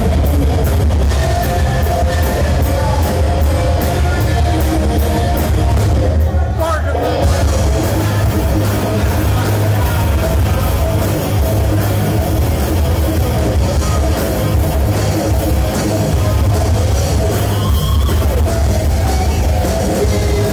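Live heavy-metal rock band playing loud through the PA: distorted electric guitar, electric bass and drum kit, with a male singer.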